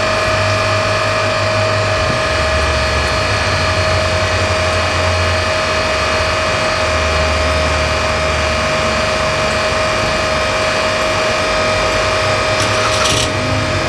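Truck engine idling with a steady hum, and a few brief clicks near the end.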